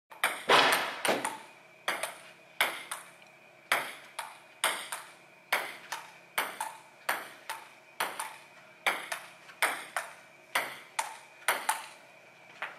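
Table-tennis rally: a ping-pong ball clicking back and forth off the paddles and the table, about two hits a second. The hits stop about a second before the end.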